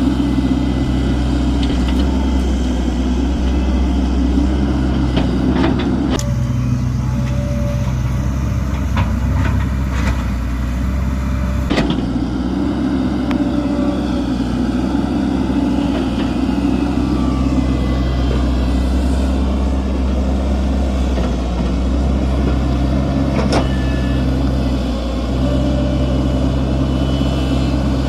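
Hitachi excavator's diesel engine running steadily, with a few sharp knocks and clanks.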